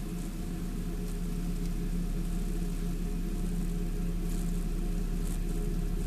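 A steady low mechanical hum, with a few faint soft ticks or rustles now and then.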